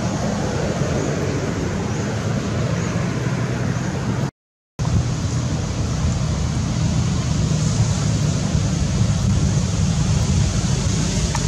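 Steady outdoor noise with a strong low rumble. It cuts out completely for about half a second a little over four seconds in, then resumes.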